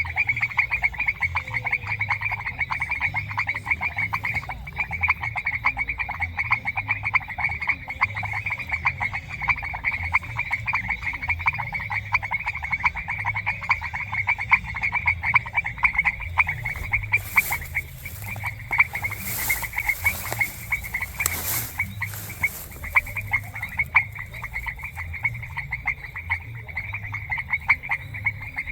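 A chorus of frogs calling without pause, a dense, rapid crackle of many overlapping calls, with a few brief hisses about two thirds of the way through.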